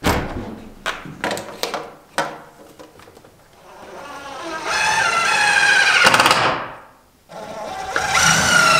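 Cordless impact driver driving screws through a vinyl window's nailing flange into the wall framing: two runs of a few seconds each, the first building up gradually, the second starting near the end. A few sharp knocks come first.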